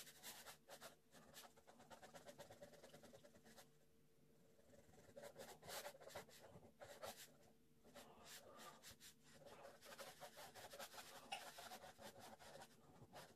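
Ballpoint pen scratching faintly on paper in rapid back-and-forth hatching strokes, with a short pause about four seconds in.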